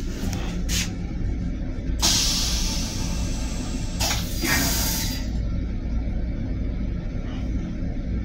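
Steady low rumble of the M7 railcar in motion. Two loud hissing rushes cut in over it, the first about two seconds in and the second, about a second long, two seconds later: the toilet flushing its stainless-steel bowl.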